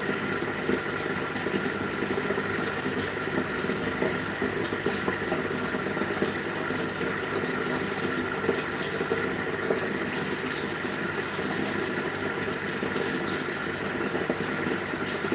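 Aquarium air stones bubbling steadily, the rising bubbles churning the water surface in an even wash with small irregular pops, over a steady hum.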